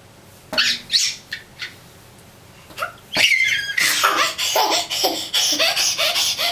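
Baby laughing: a few short, breathy squeals, then from about four seconds in a run of quick, rhythmic belly laughs.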